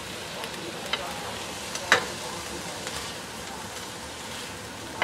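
Spatula scraping around a nonstick wok over a steady sizzle of oil as stir-fried squid is scooped out onto a plate. Two sharp knocks of the spatula, about one and two seconds in, the second the louder, and another right at the end.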